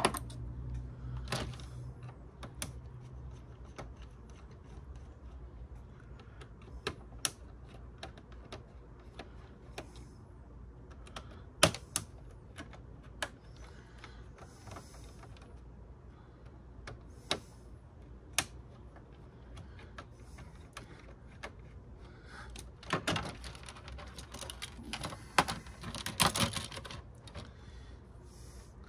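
Scattered clicks, taps and light rattles of plastic casing parts and small screws being handled and pulled apart as a DVD player is dismantled, with a couple of longer rattling stretches near the end.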